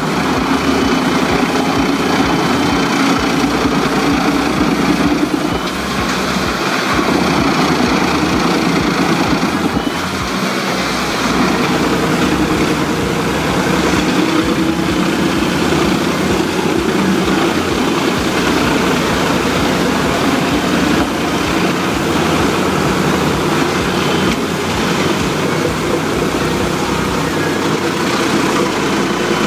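Fendt 828 tractor and the PTO-driven Heizohack HM 14-800 KT drum wood chipper running steadily and loudly, a constant engine and machine noise with no distinct bangs.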